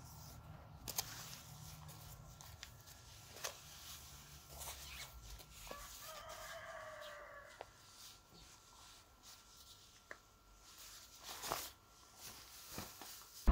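Faint rustling and small clicks of hiking-boot laces being pulled tight and tied by hand. About six seconds in, a single drawn-out bird call lasting about a second and a half.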